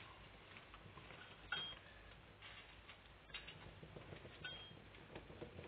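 Faint metallic ticks and clicks of a screwdriver and small screws as the top cover of a Triumph Stag carburettor is unscrewed, with a few sharper clicks, the loudest about one and a half seconds in.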